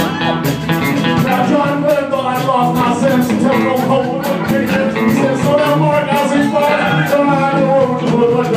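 Live band music: electric guitar played over drums keeping a steady beat on the cymbals.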